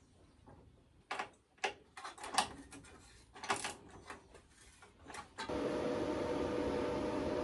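Scattered clicks and rattles of hands handling heavy battery cables and terminal connections under a solar inverter. About five and a half seconds in, a steady hum with a faint tone takes over: the EG4 inverter running.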